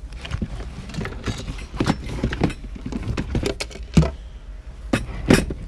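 Small pieces of jewelry and pins clicking and clinking as they are picked through by hand, in a series of irregular sharp clicks and a few light knocks.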